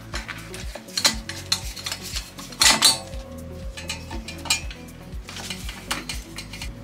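Utility knife cutting and old vinyl upholstery being peeled and torn off a boat's helm console: scattered scraping, clicking and ripping noises, the loudest about two and a half seconds in, over background music with a steady beat.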